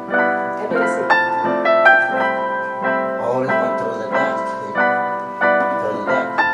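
Background piano music: a slow melody of sustained notes, each ringing on after it is struck.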